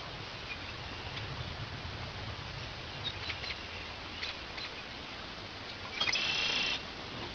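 Quiet outdoor background hiss with a few faint clicks, and one high squeaky chirp lasting under a second about six seconds in. No shot or explosion.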